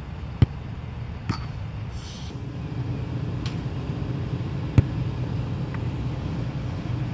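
A soccer ball kicked twice, each a sharp thud, about four seconds apart, over a steady low background rumble.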